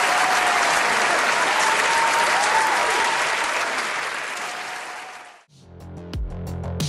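Audience applauding, a dense sustained clapping that fades out about five seconds in. Electronic music with a drum-machine beat then starts near the end.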